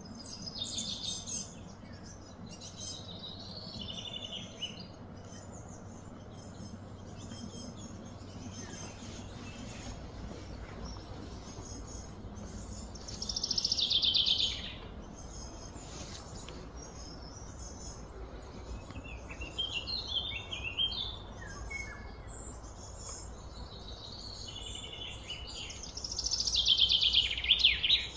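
Birds chirping and calling, with two louder trilling calls that fall in pitch, one about halfway through and one near the end.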